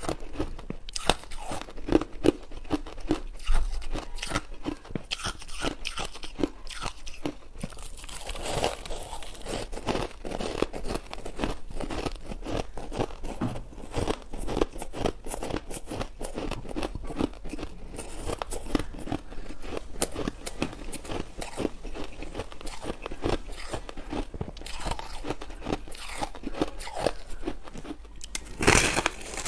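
Crushed ice being chewed: rapid, dense crunching throughout, louder near the end.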